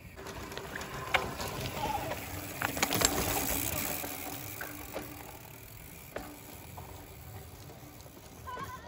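Mountain bike riding over rough trail: tyre noise with scattered sharp clicks and rattles, loudest about three seconds in, then fading.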